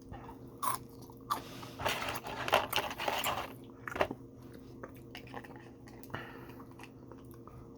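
Close-up eating sounds: irregular crunching and chewing of fried fast food, heaviest about two to three seconds in, over a faint steady hum.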